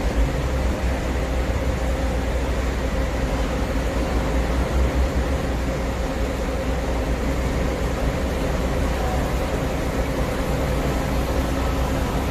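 A bus running steadily: a constant low engine rumble with a faint steady hum over it.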